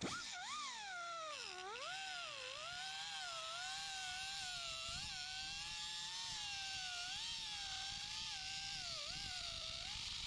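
Cutoff wheel whining as it cuts across a sheet-metal car quarter panel. The pitch dips sharply about two seconds in as the wheel bites, then wavers with the load as the cut goes on. It stops suddenly at the end.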